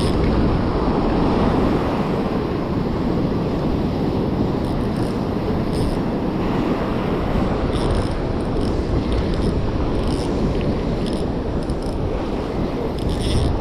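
Surf breaking and washing up the shore, with a steady low rumble of wind on the microphone.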